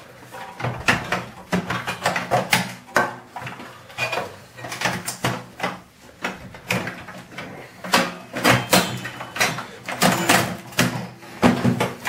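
Irregular clicks, clanks and rattles of pliers and wires against a microwave oven's sheet-metal chassis as its internal cables are pulled out.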